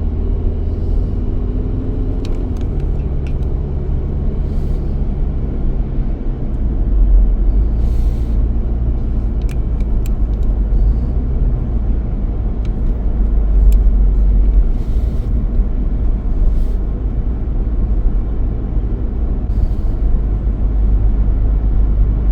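Road noise inside a moving car: a steady low rumble that swells louder about seven seconds in and again around thirteen to fifteen seconds, with a few faint ticks.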